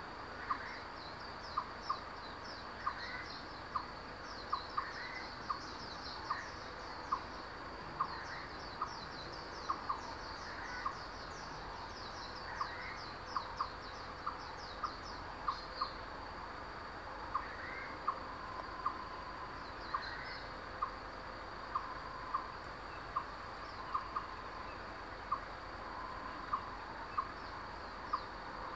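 Forest ambience of birdsong and insects. Short, clear piping call notes repeat irregularly, one or two a second, over bursts of rapid high chirping and a steady thin high insect whine.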